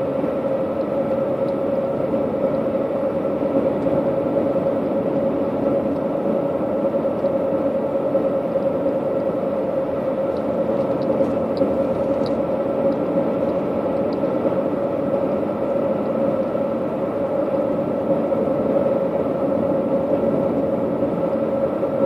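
Steady road and engine noise of a car driving at highway speed, heard from inside the cabin: an even drone with a steady hum, and a few faint ticks about halfway through.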